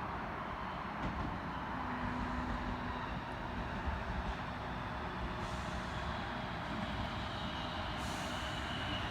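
Sydney Trains Tangara electric train pulling into the platform, a steady rumble with faint whines from its running gear, a high whine coming in about six seconds in.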